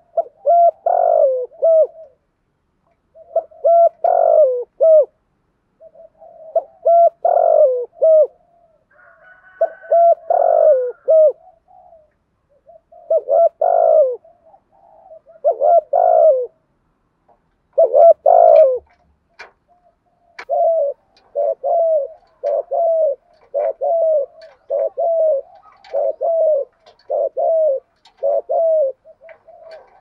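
Spotted dove cooing in the rapid bowing-coo style Vietnamese keepers call "thúc gù". It gives repeated groups of low coos about every three seconds, then, from about twenty seconds in, a quicker even run of single coos about one a second.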